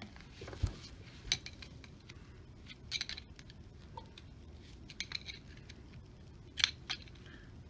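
Light, scattered metallic clicks and clinks from a new brake caliper being handled and a small pick working at its banjo-fitting port, prying off the brass sealing washers. The sharpest click comes near the end.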